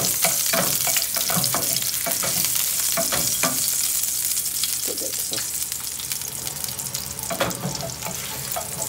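Garlic cloves sizzling in hot oil in a non-stick frying pan, with a steady high hiss. A wooden spatula scrapes and taps the pan as the garlic is stirred, in the first few seconds and again near the end.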